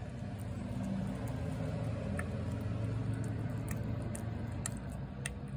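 A cat chewing and lapping wet pate off a plate, a run of small wet clicks and smacks, over a steady low hum.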